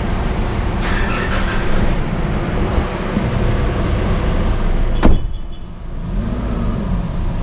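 Nissan Navara pickup's engine running, just filled with fully synthetic Polytron oil, under steady vehicle noise. A single sharp click about five seconds in is the loudest moment, after which the noise drops for about a second.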